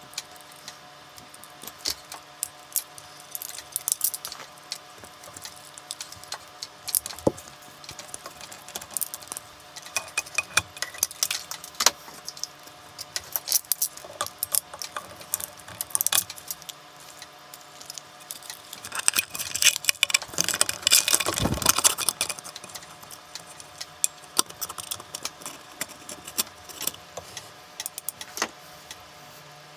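Hand-work on wiring: scattered clicks, rattles and clinks from wires, blue crimp terminals and a crimping tool being handled and squeezed, with a busier stretch of handling noise about two thirds of the way through.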